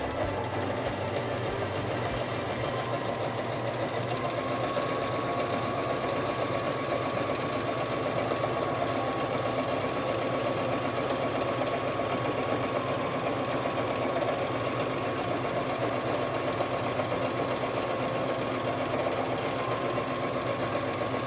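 Electric domestic sewing machine running steadily, its needle stitching a tight zigzag through fabric.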